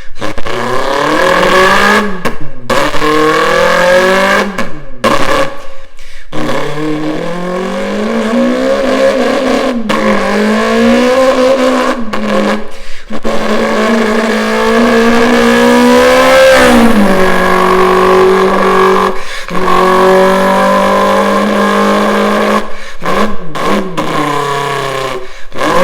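A person imitating a Nissan Skyline R34 GT-R's engine with the mouth: a buzzing voice that rises and falls in long revving glides. It is broken every few seconds by short stuttering breaks in imitation of turbo flutter.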